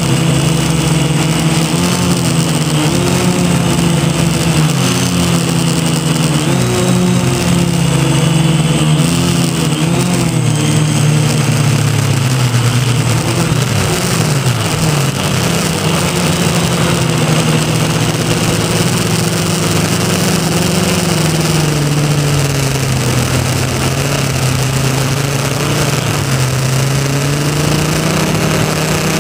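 Quadcopter's four motors and propellers buzzing in flight, heard from a camera mounted on the craft. The pitch wavers up and down quickly in the first few seconds, then dips and rises more slowly as the throttle changes.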